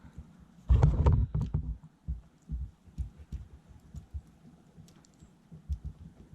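A cluster of low thumps and knocks about a second in, followed by scattered softer thumps and a few light clicks, as parts and tools are handled.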